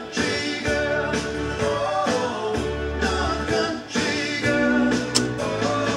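A vinyl record playing on a Dual 1245 turntable: music with a singing voice, starting just after the stylus has been cued down onto the record.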